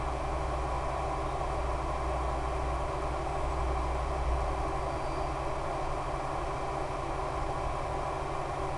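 Steady drone of the Super Cub's E-flite Power 10 brushless motor spinning an 11x7 APC propeller in flight, mixed with rushing air; a low rumble beneath it eases off about halfway through.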